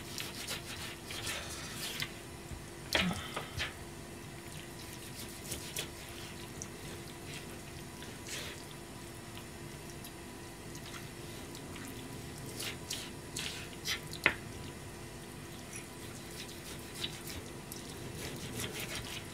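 Kitchen knife cutting raw chicken on a plastic cutting board: scattered taps of the blade against the board, a few sharper than the rest, over a steady faint hum.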